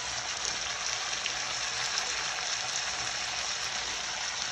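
Seasoned pork frying in its sauce in a pan: a steady crackling sizzle of hot fat and juices.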